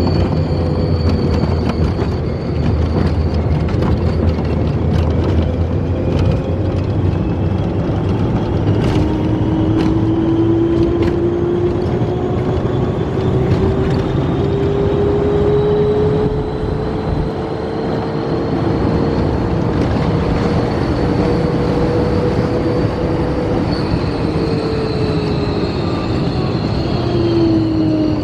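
Test Track ride vehicle running at speed: a steady, loud rumble and wind noise, with a motor whine that rises slowly in pitch through most of the run and drops away near the end.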